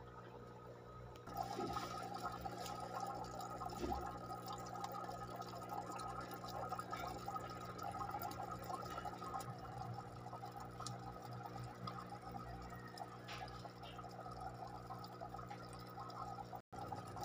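Aquarium water bubbling and splashing, which comes up a little over a second in, over a steady low hum from the tank's equipment; the sound cuts out for an instant near the end.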